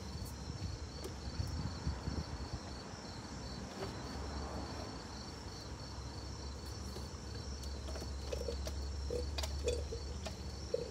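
Steady chirring of insects over a low steady hum, with scattered light clicks and knocks of hands working on parts in a car's engine bay, a few louder ones in the second half.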